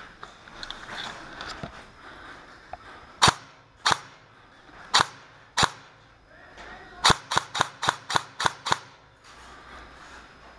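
Airsoft guns firing: four single shots spaced over a couple of seconds, then a quick string of about eight shots at roughly four a second.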